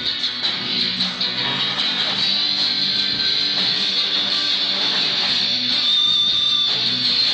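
A band playing with a loud electric guitar at the front, strummed chords over bass and drums.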